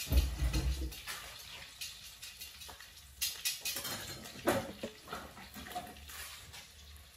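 Handling noise of dough being filled with chopped chives by hand: light rustling, with a few sharp clicks from a metal spoon pressing in the filling about three and four and a half seconds in. A dull low thump in the first second.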